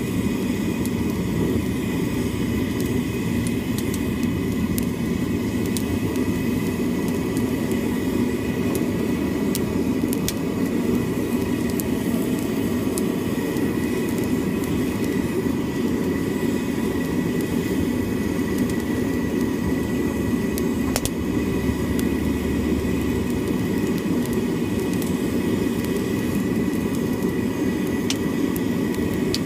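Burner flames of a shou sugi ban charring machine torching larch boards: a steady, low rushing noise throughout, with a faint steady high whine and scattered sharp ticks.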